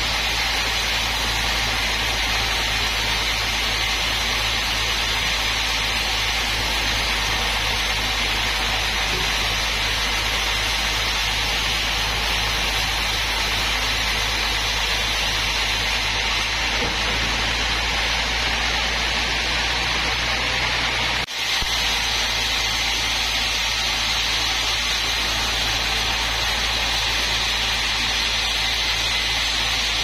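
Sawmill band saw cutting lengthwise through a mahogany log: a steady hiss of the blade in the wood over the constant hum of the mill's motor. There is a momentary gap about two-thirds of the way through.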